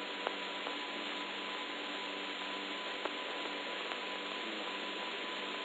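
Steady hiss and hum of an old 1963 recording, with a few faint clicks.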